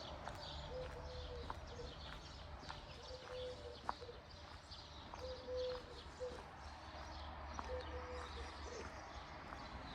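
Faint outdoor birdsong: high chirps, and a low call repeated about every two and a half seconds. There are scattered light clicks and a low rumble underneath.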